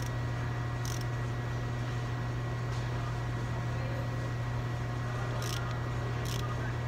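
Steady low mechanical hum, unchanging throughout, with a few short high hissing sounds about a second in and twice near the end.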